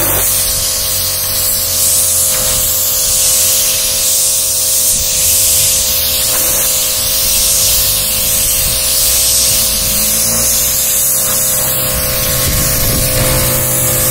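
Pressure washer jet spraying water onto a floor mat and concrete: a loud, steady hiss. The washer's motor and pump run underneath with a steady hum.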